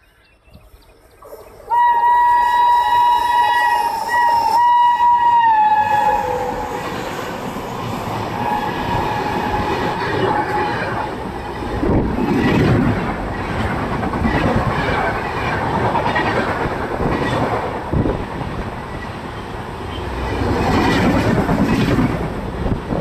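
An Indian electric locomotive's horn sounds loudly for about four seconds as the train closes in, its pitch dropping as it passes. Then LHB passenger coaches rush past close by at speed, with rhythmic clatter of wheels over the rail joints.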